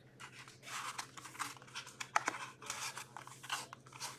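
Hands tearing and crinkling the wrapper of a hockey card pack and handling the cards: uneven bursts of rustling with a few sharp clicks.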